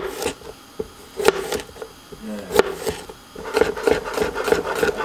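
Kitchen knife chopping a cucumber on a plastic cutting board: a few separate chops, then a quicker run of about five strokes a second in the last second and a half as the slices are cut into thin strips.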